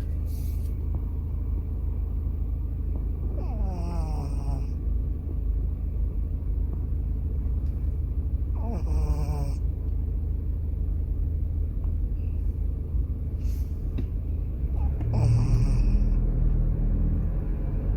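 A sleeping pet snoring: a steady low rumble of breathing, with three louder snores, each a short whiny tone falling in pitch, coming about every five seconds.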